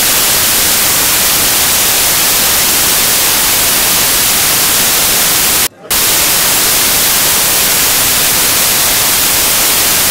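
Loud, even static hiss across all pitches, cutting out for an instant about six seconds in.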